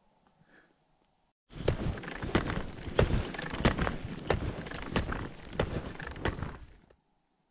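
Loud rustling and scraping noise with irregular knocks, about two a second, from a hand-held camera carried by a skier moving across snow. It starts abruptly a second and a half in and cuts off abruptly near the end.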